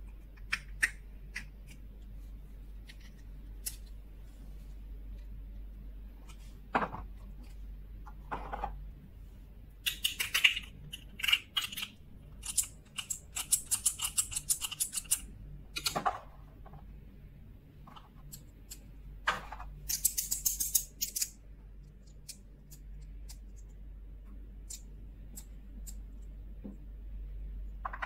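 Small plastic toys and packaging being handled: scattered sharp clicks and taps, with bursts of rapid crisp clicking about ten seconds in and again about twenty seconds in, over a low steady hum.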